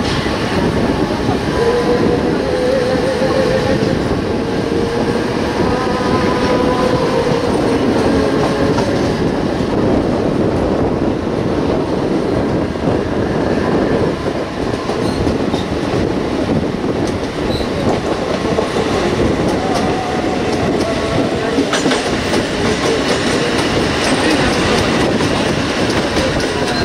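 Mumbai suburban electric multiple-unit trains running on parallel tracks, heard from the open doorway of one of them: a steady rumble of steel wheels on the rails, with a faint wavering tone a few seconds in.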